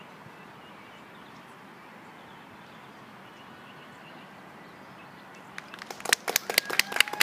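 Steady outdoor background hiss, then about five and a half seconds in a few spectators start clapping close by, loud separate hand claps that quicken near the end.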